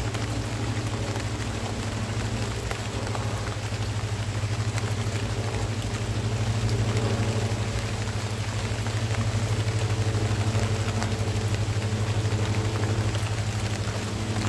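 Steady rain falling on foliage, with a steady low mechanical hum like a motor running underneath.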